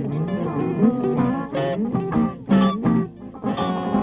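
Guitar music: plucked notes that slide and bend up and down in pitch, with a brief drop in level about three seconds in.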